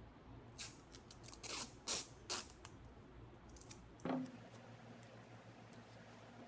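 Masking tape being pulled off its roll in several short rasping rips, then one knock about four seconds in.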